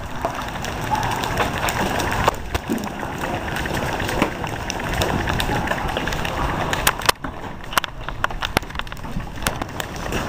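Storm wind rushing over the microphone with a steady low rumble, crossed by scattered sharp clicks and knocks, several close together about seven to nine seconds in.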